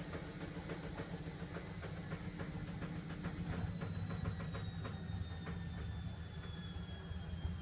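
KDK 15WUE window-mount exhaust fan running steadily: a low motor hum and rush of air from the blades, with light rapid clicking rattles.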